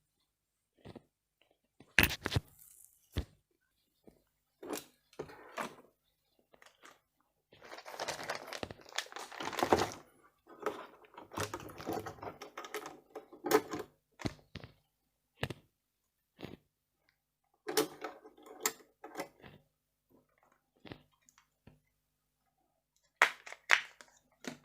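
CPU box packaging being handled: scattered sharp clicks and knocks, with a few seconds of crinkling and rustling in the middle.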